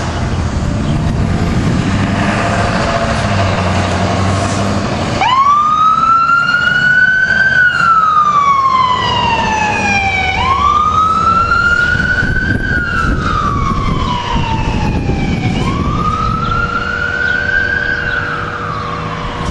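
Low engine rumble from the fire apparatus for about five seconds, then a fire truck's electronic siren starts on wail. It makes three slow cycles, each climbing and then sliding back down over about five seconds.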